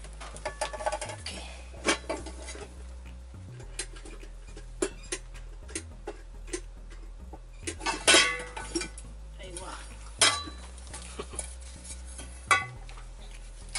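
Metal clinks and knocks from a rice cooker's inner pot and parts being handled and set down, scattered irregularly, with louder clanks about eight and ten seconds in.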